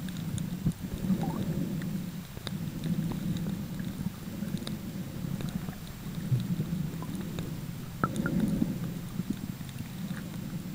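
Muffled underwater noise picked up by a camera held below the surface: a low, uneven rumble with scattered faint clicks.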